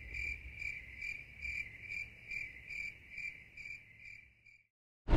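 A cricket chirping, one high, steady note pulsing in an even rhythm of about two to three pulses a second, which stops about four and a half seconds in.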